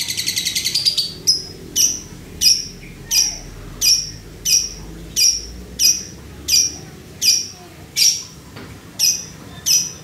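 Male Fischer's lovebird in breeding condition 'ngetik': a rapid run of ticks for about the first second, then a steady series of sharp, falling chips about one and a half a second. The even clacking rhythm is like the knock of lato-lato clacker balls.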